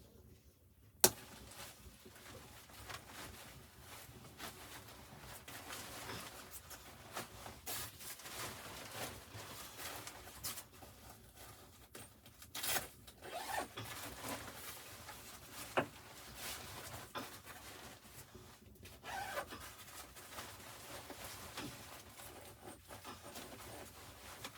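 Irregular rustling and scraping of something being handled, with scattered short clicks; a sharp click about a second in is the loudest.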